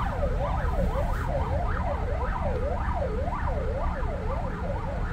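Emergency vehicle siren in a fast wail, its pitch sweeping up and down two to three times a second, over a steady low rumble of traffic.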